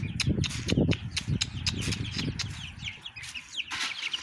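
Chickens clucking with low calls, while chicks peep in quick, short falling cheeps that crowd together near the end; scattered light clicks throughout.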